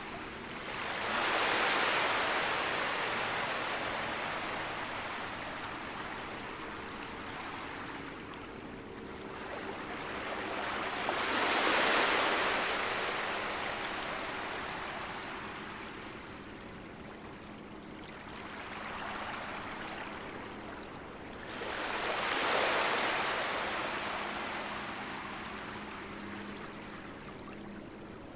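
Gentle sea waves lapping on a beach, each wash swelling and fading away, the larger ones about ten seconds apart.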